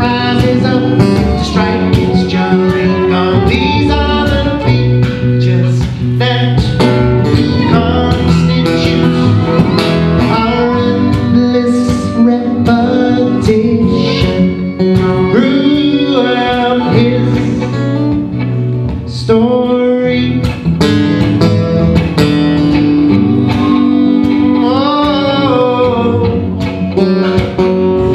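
A man singing while strumming an acoustic guitar, a solo live performance.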